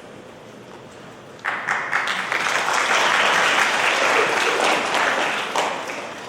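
Audience applauding: the clapping breaks out suddenly about a second and a half in, holds full for a few seconds, then tapers off near the end.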